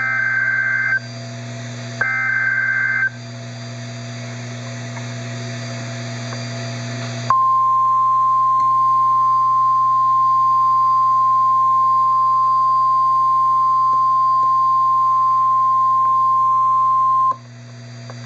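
NOAA Weather Radio Emergency Alert System signal: two roughly one-second bursts of warbling digital SAME header data, a few seconds of hiss, then the steady 1050 Hz warning alarm tone held for about ten seconds. This is the alert that precedes a broadcast severe-weather warning. A low radio hum runs underneath.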